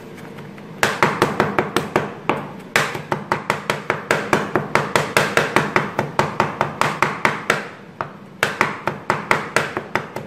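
Kitchen knife chopping rapidly on a wooden cutting board, mincing garlic and ginger finely: quick knocks of the blade on the board, about four or five a second. The chopping starts about a second in and breaks off briefly twice.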